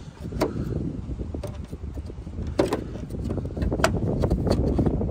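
Plastic turn-signal light housing of a 1998 Ford F-150 being pushed into its mounting, giving a handful of sharp clicks and knocks as its tabs and pins seat against the body, over a steady low rumble.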